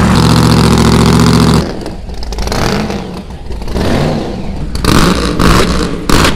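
A car engine runs at a steady pitch, stops abruptly about one and a half seconds in, and is followed by uneven revving with rising and falling pitch and a few loud surges.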